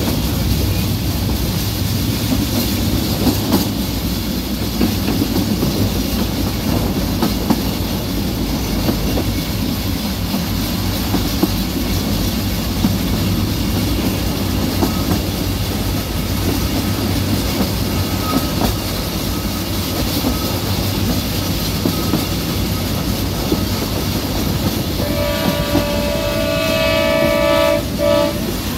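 Narrow-gauge train running at speed: a steady rumble and clatter of the carriage wheels on the track, with the locomotive's horn sounding one long blast near the end.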